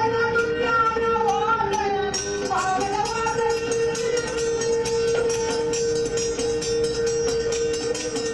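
Hindustani-style Indo-Jamaican song: a voice sings a wavering melody over a steady drone note, with rapid, even percussion strokes. About three seconds in the melody settles and the held drone carries on with the rhythm.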